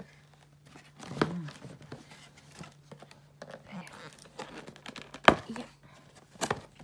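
A cardboard box being handled and cut open: crinkling, scraping and tearing of cardboard and packing tape, with scattered sharp clicks, the loudest about five seconds in.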